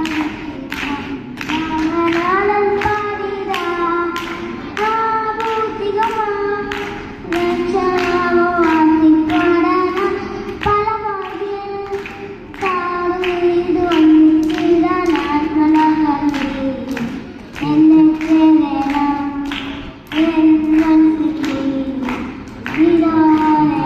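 A young boy singing solo through a microphone and PA, holding long sung notes, over a steady tapping beat of about two taps a second.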